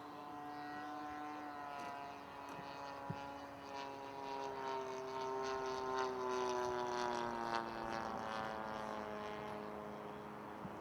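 Radio-controlled model airplane's engine and propeller running steadily as it flies past: the sound grows louder through the middle, then falls in pitch and fades as the plane moves away.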